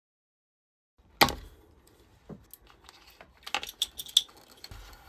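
About a second of silence, then a sharp clack followed by a run of light clicks and metallic clinks from small parts and tools being handled on a workbench.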